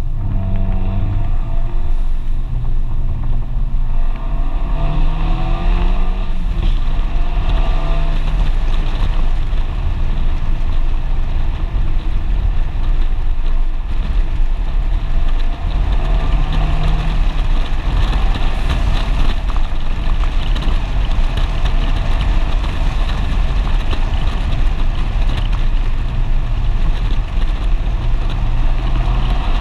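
FIAT 124 Spider Abarth's turbocharged 1.4-litre four-cylinder engine running under load through the bends, its pitch holding and then rising and falling several times. It is heard over steady wind and road noise in the open cockpit.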